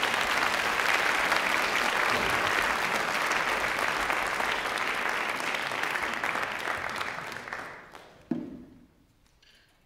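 Audience applauding, dying away about eight seconds in, with a single low thump just as it fades.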